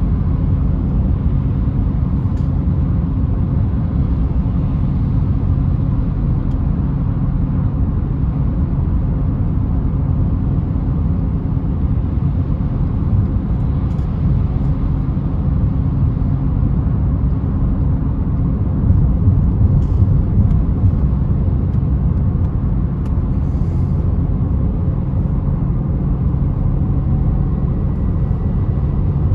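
Citroen C3's 1.4 VTi four-cylinder petrol engine idling steadily at a constant speed, a low even hum during an engine overheating test.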